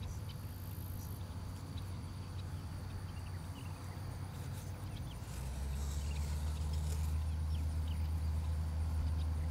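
Outdoor background: a steady low rumble that grows louder about five seconds in, with faint, scattered bird chirps over it.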